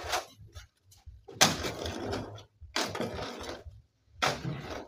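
Steel shovel scraping into and turning a hand-mixed pile of wet concrete (gravel, sand and cement) on bare ground, four strokes about one every second and a half.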